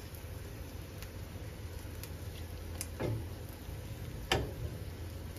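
Quiet kitchen handling as lime halves are squeezed over a ceramic plate: a few light clicks and a soft thump, the sharpest click about four seconds in, over a steady low hum.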